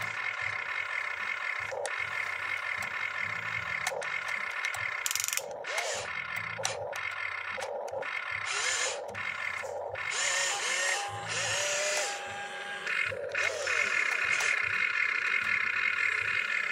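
Toy RC excavator's small electric motors and plastic gearboxes whining and buzzing as the boom and bucket move, in runs that stop and start several times, with short rising and falling whines.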